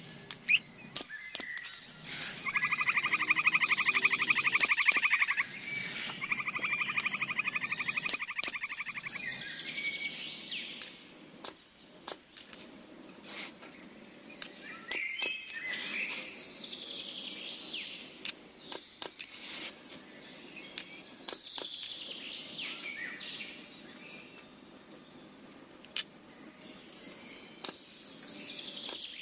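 Birds chirping, with two long, rapid, loud trills in the first third and short falling chirps later. Scattered light clicks and taps of small wooden pieces being handled.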